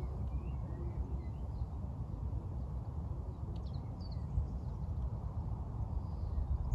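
Wind buffeting the microphone in a steady low rumble, with scattered short chirps of birdsong.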